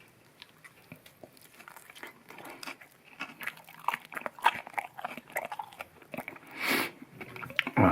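Close-up chewing and crunching of a mouthful of crispy-skin chicken, with many irregular crackles from the crisp skin. A breath near the end and a short voiced sound just before it closes.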